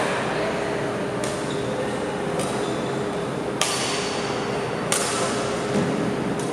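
Badminton rackets striking a shuttlecock back and forth in a rally: five sharp cracks, about one every second and a quarter, echoing in a large hall.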